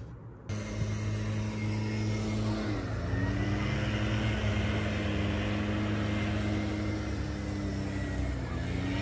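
An engine running steadily with a low hum, its pitch dipping briefly and coming back up twice.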